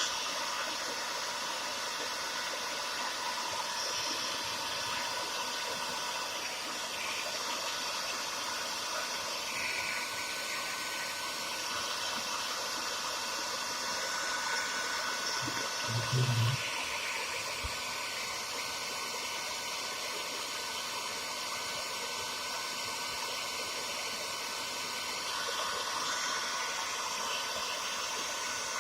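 Handheld hair dryer blowing steadily, a constant rushing of air with a thin whine, as it heats a motorcycle headlamp so the lens can be opened. A brief low knock about halfway through.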